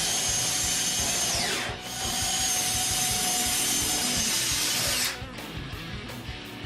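Power drill with an 1/8-inch bit boring slowly into hard maple cabinet wood. The motor winds down about a second and a half in, starts up again, and stops about five seconds in.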